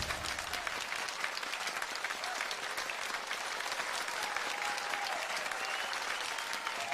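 Audience applauding steadily after a song ends, with a few faint voices among the clapping.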